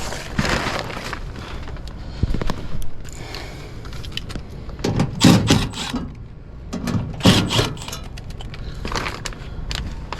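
Irregular scraping, rustling and knocking, with two louder thumps about five and seven seconds in, over a low steady hum.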